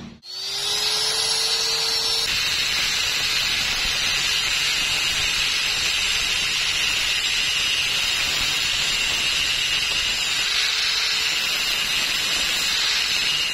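Electric angle grinder with an abrasive disc, its whine rising over the first couple of seconds as it comes up to speed. Then a steady, loud grinding as the end of a steel rod is pressed against the disc face.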